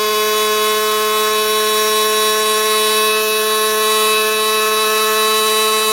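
A loud, steady droning tone with many overtones, held at one unchanging pitch.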